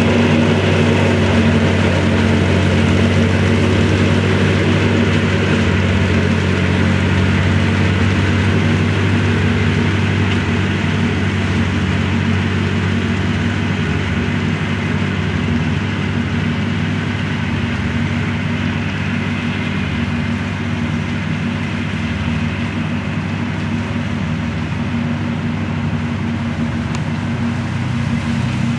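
A 1964 Ford 4000 tractor's four-cylinder gasoline engine runs steadily under load while driving a rear-mounted rotary mower. It grows a little fainter through the middle as the tractor moves off, and louder again near the end.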